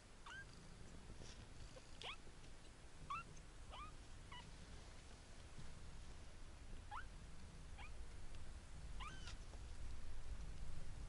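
Young kittens mewing: about nine short, thin, high cries that rise sharply in pitch, scattered a second or so apart.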